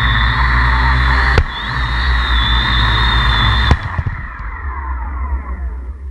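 Tarot hexacopter's brushless motors and propellers whirring with a steady high whine, broken by two sharp knocks as it sets down on concrete; after the second knock the motors cut off and spin down, the pitch falling away.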